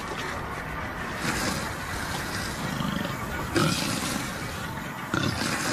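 A rhinoceros and elephants facing off, with deep, rough animal calls. Two loud calls break in suddenly, about three and a half and five seconds in.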